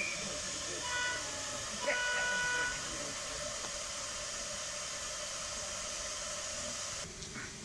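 Two horn toots from a sound-fitted model diesel locomotive: a short one about a second in, then a longer one of under a second starting near the two-second mark, over a steady hiss.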